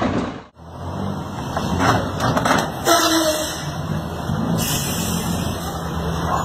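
Heavy truck engine running with a steady low drone as the truck shoves an SUV wedged under its rear bumper. A short squeal comes about halfway through and a brief hiss a little later.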